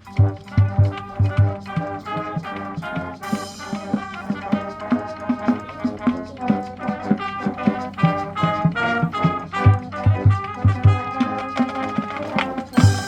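Marching band brass section playing sustained chords over regular bass drum hits, with a bright crash about three seconds in and another near the end.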